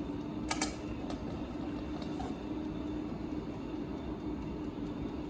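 Steady low background hum with a constant tone, and a short sharp click about half a second in followed by a couple of faint ticks.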